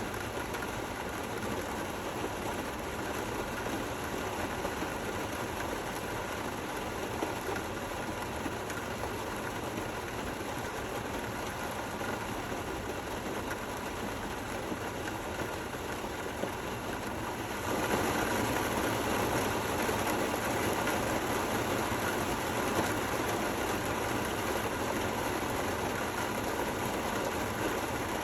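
Steady rain falling: an even hiss and patter with no thunder. It gets suddenly louder and brighter a little past halfway through.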